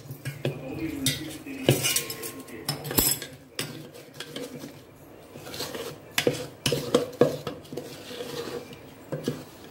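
Steel spoon stirring rice flour in a stainless-steel bowl, scraping and clinking against the metal, with scattered sharp knocks and taps.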